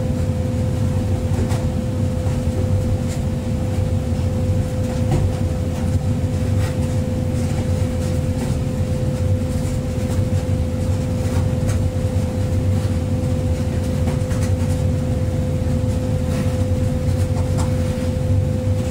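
Excavator's diesel engine running steadily, heard from the cab, with a steady whine over the rumble and scattered light clicks.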